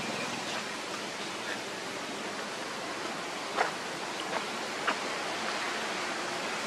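Steady, even background hiss, with three brief sharp clicks about three and a half, four and a half and five seconds in, the first the loudest.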